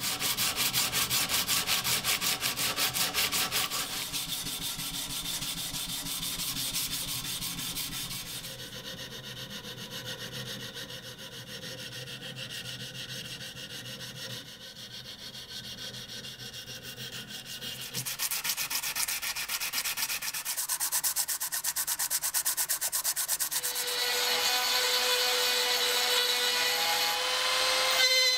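Abrasive strip rubbed back and forth by hand over a rusty steel knife blade and its bronze guard, in quick scraping strokes, louder at the start and again later. About twenty-four seconds in, a small rotary tool with a burr starts running with a steady whine, grinding at the blade.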